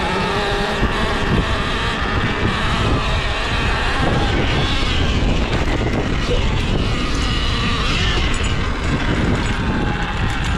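Sur-Ron Ultra Bee electric dirt bike ridden over a dirt track: steady wind rush on the microphone and tyre noise, with a faint electric motor whine rising and falling with the throttle.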